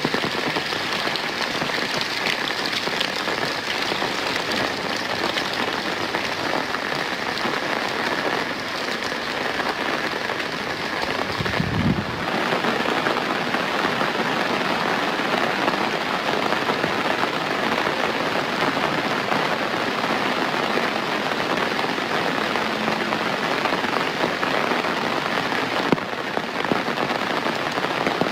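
Steady heavy rain falling, a dense even hiss of drops, with a short low thump about halfway through.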